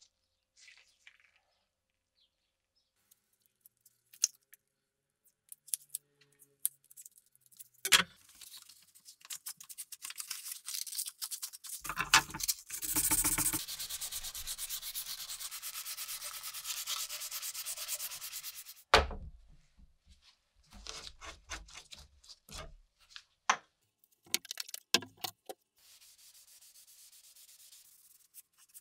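A gloved hand rubbing a new wooden sickle handle on a workbench. A few light clicks come first; about eight seconds in, a long run of fast back-and-forth rubbing strokes begins, lasting about eleven seconds. Shorter bouts of rubbing follow, with a few sharp knocks of the tool against the bench.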